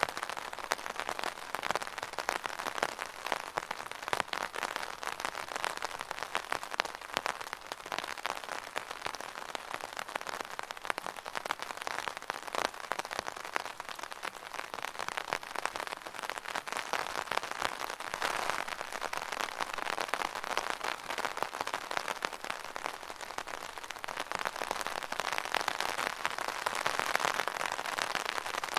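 Rain falling steadily on an umbrella canopy, a dense patter of drops striking the fabric, swelling a little louder near the end.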